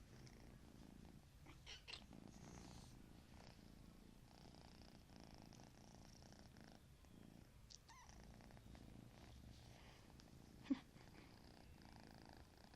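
Domestic cat purring faintly and steadily, with a short sharp tap near the end.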